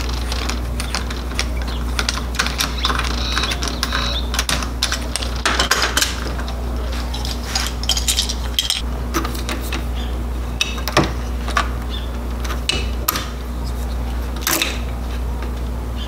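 Hand screwdriver backing out the screws of an old doorknob, with irregular small metallic clicks and clinks as the screws turn and the knob's metal parts are handled and pulled apart.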